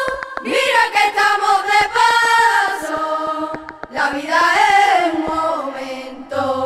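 A song in Spanish on the soundtrack: a voice singing long notes that slide between pitches, over a light ticking accompaniment.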